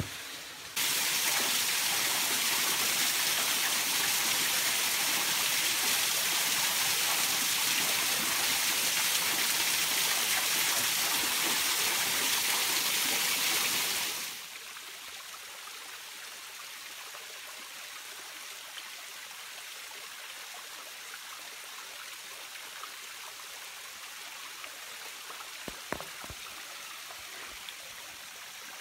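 Water falling and rushing over rocks at a thin, low-flow waterfall: a loud, even splashing rush that drops abruptly about fourteen seconds in to a softer, steady creek flow.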